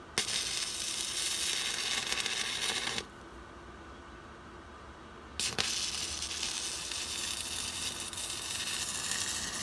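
Stick welder's arc crackling and hissing as a bead is run. It starts with a sharp strike and burns for about three seconds, goes out, then is struck again about five and a half seconds in and burns steadily.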